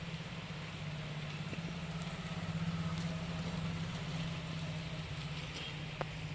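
Low pulsing hum of an engine running through falling rain, a little louder about halfway through, with one sharp click near the end.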